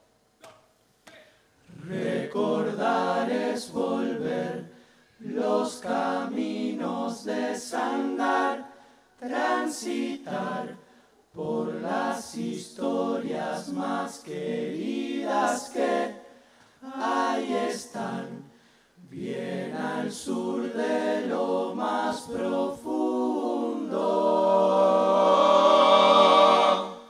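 Uruguayan murga chorus singing a cappella in short phrases broken by brief pauses, ending on a long held chord that is the loudest part.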